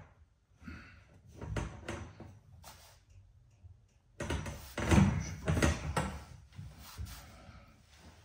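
Knocks, clicks and rubbing as hands grip and push on copper pipes fixed along a wall, checking how crooked they run. A few knocks come in the first few seconds, then a louder burst of knocking and rustling about four seconds in.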